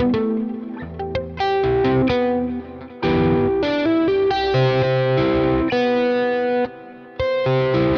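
Electric guitar playing arpeggiated chords, its notes ringing into one another, in an effected, lightly overdriven tone. The playing breaks off briefly about two and a half seconds in and again near the seven-second mark.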